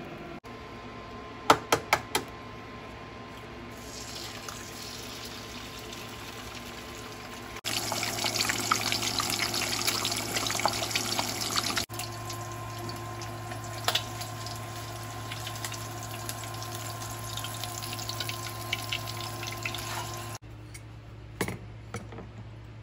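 Food frying in a nonstick pan: a loud sizzle for about four seconds, then a softer, steady sizzle with small crackles as an egg fries. Before it, four quick sharp clicks; near the end, a couple of clicks as a water dispenser's button is pressed.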